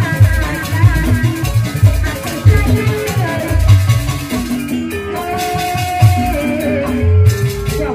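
Live jaipongan music: kendang hand drums beat a heavy low rhythm under a sliding, ornamented melody line.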